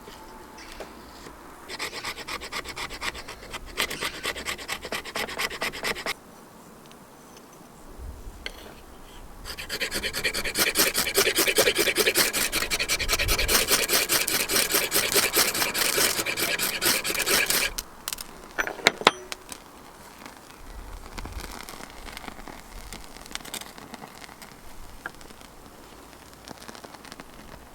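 Condor Terrasaur knife scraping fatwood in rapid, repeated strokes. There is a short run early on and a longer, louder run in the middle, followed by a few sharp clicks.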